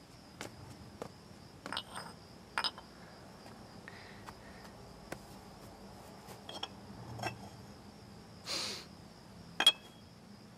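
Faint, scattered clicks and light clinks of crockery and kitchen things being handled, with a short rustle about eight and a half seconds in and a sharper click just before the end.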